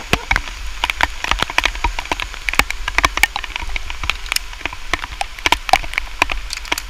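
Rain, with many large drops tapping irregularly on a surface close by, over a steady low rumble.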